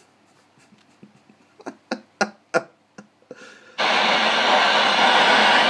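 CB radio receiver: near quiet with a few short clicks, then at about four seconds in a loud, steady hiss of static comes on abruptly as an incoming carrier opens the receiver.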